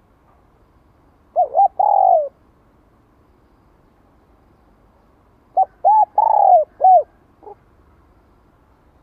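Spotted dove cooing: two phrases about four seconds apart. The first is two short notes and a longer falling coo; the second is two short notes, a long coo, a short note and a faint last note.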